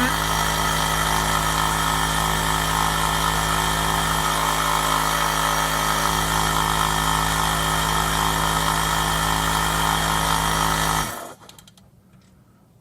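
Electric air compressor running steadily, its motor and pump making a constant mechanical drone, then switched off about eleven seconds in and spinning down to a stop within a fraction of a second. The pump runs but the tank does not fill, which the owner suspects is a busted diaphragm.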